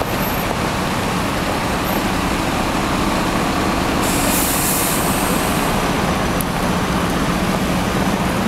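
Engine and road noise heard from inside a moving vehicle: a steady low engine hum under even road noise, with a short hiss about four seconds in.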